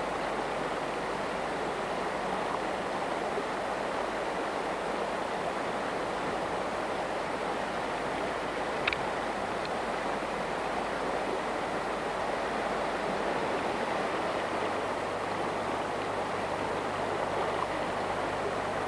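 Fast-flowing river water rushing over rocks in a steady wash, with one short click about halfway through.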